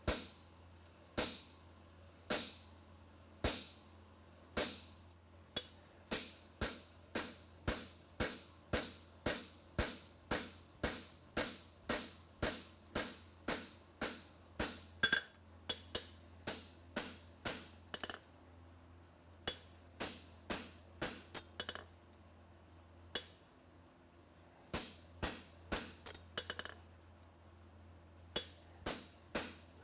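Hand hammer striking a handled fuller held in a hot steel horseshoe on an anvil, fullering the nail crease. Sharp metallic strikes with a short ring come about one a second at first, then quicken to about two a second, with a couple of brief pauses.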